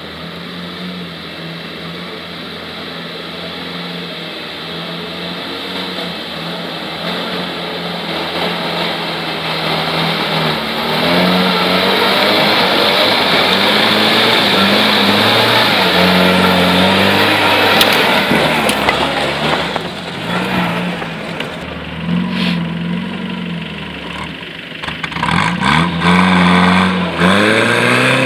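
UAZ-469 off-roader's engine revving up and down as it pushes through deep water, with water splashing around the wheels. The engine grows louder over the first dozen seconds as the vehicle approaches. It eases off briefly near the end, then revs again.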